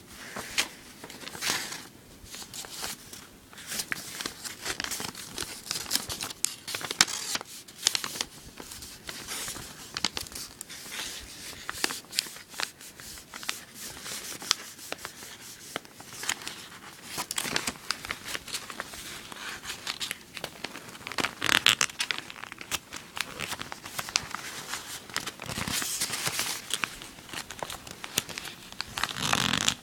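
A sheet of origami paper rustling and crinkling as it is folded and creased by hand, in irregular short scrapes and crackles, a few louder near the end.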